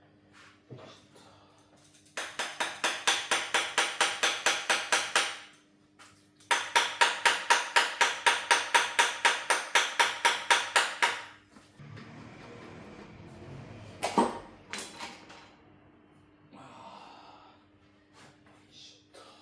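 Impact wrench run in two bursts of about three and five seconds, rattling several times a second as it undoes bolts during engine teardown; a single sharp knock follows later.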